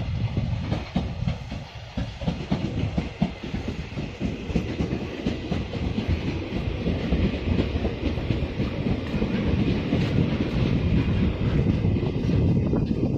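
Puyuma Express tilting electric multiple unit (TEMU2000) running into the station past the platform. Its wheels clack over the rail joints, then give way to a steadier, slightly louder rumble as the cars roll by.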